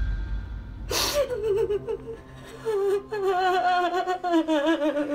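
A woman crying in distress: a sharp gasping breath about a second in, then high, wavering sobbing wails that break off briefly around three seconds in.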